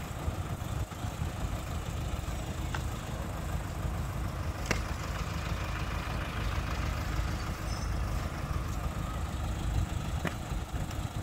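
Diesel engine idling steadily, with a few sharp knocks, the clearest a little under five seconds in.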